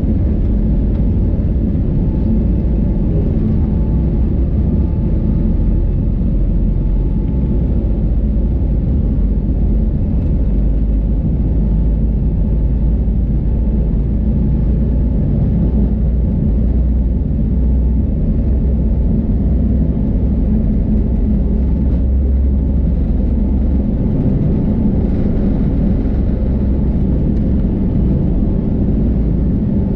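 Airbus A320 on its takeoff roll, heard from the cabin: jet engines at takeoff thrust over the deep rumble of the wheels on the runway. The deep rumble eases about three-quarters of the way through as the aircraft lifts off.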